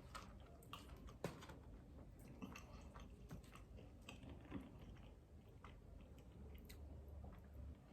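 Faint chewing of food, with scattered small crunches and mouth clicks; the sharpest crunch comes about a second in.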